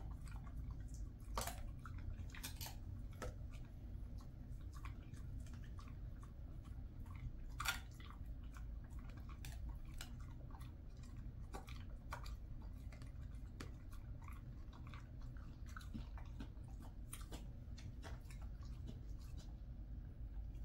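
Jindo dog chewing dry chicken breast jerky: irregular small crunching clicks, with a louder crunch about eight seconds in.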